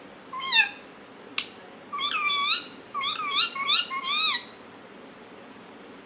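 Indian ringneck parakeet calling at its reflection in a mirror. One short call comes first, then a sharp click, then two quick runs of warbling calls that rise and fall in pitch, about two and three seconds in.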